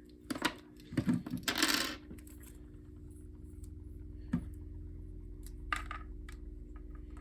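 Small hard objects clinking and clattering sharply several times as they are handled, then a steady low hum with two faint clicks later on.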